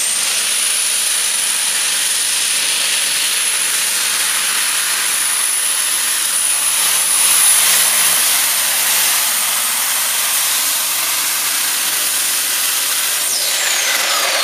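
Supercharged modified pulling tractor running flat out under load through a pull, with a high whine that holds steady and falls away about a second before the end as it comes off the throttle.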